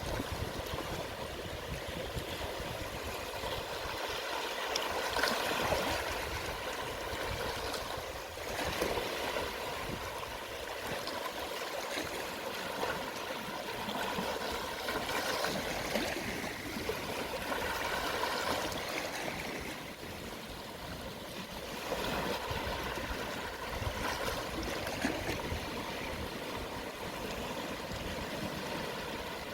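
Calm sea waves washing gently over a shallow shore at low tide: a steady water hiss that swells and ebbs every few seconds.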